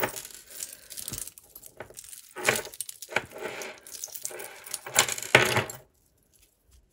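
Costume jewellery chains, beads and metal pieces clinking and jangling as a tangled pile is rummaged through by hand, in irregular bursts, loudest about five seconds in, then stopping.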